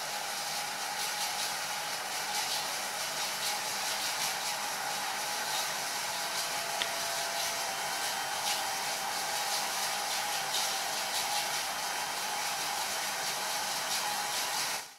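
Medsor Impex MIDCF2 digital benchtop centrifuge with its rotor spinning up from about 3,100 to 5,100 rpm: a steady airy rush with a faint steady tone beneath it. The sound cuts off suddenly near the end.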